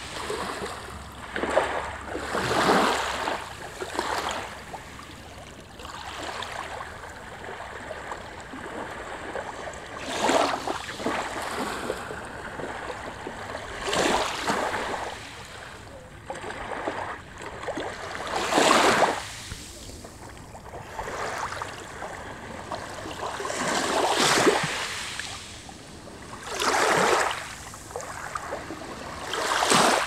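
Small sea waves lapping and washing up over a shell-strewn shoreline, a rush of water every few seconds over a steady wash.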